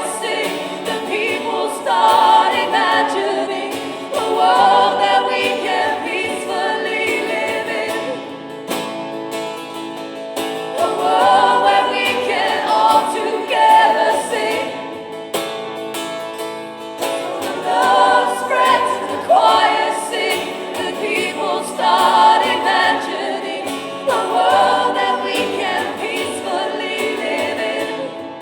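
A choir singing in full harmony with the lead singers, in swelling sung phrases, accompanied by acoustic guitar.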